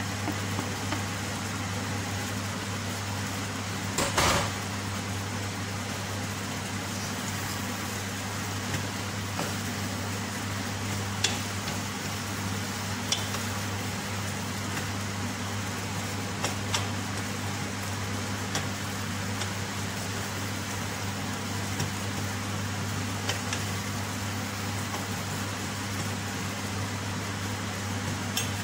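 Wooden spatula knocking and scraping against a stainless steel pot as vegetable rice and fried egg are mixed, with a louder clatter about four seconds in and scattered single knocks after, over a steady low hum.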